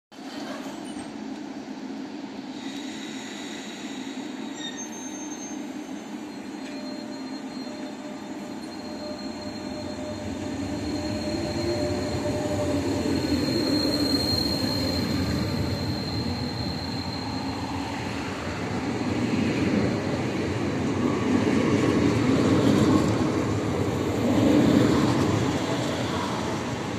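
Renfe Cercanías electric commuter train pulling out from a standstill, its motors whining in a slowly rising pitch as it gathers speed. The rumble of wheels on rail grows louder as the carriages pass close by.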